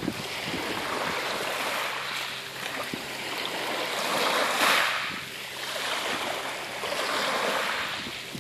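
Sea waves washing and splashing, swelling to a peak about halfway through and rising again near the end.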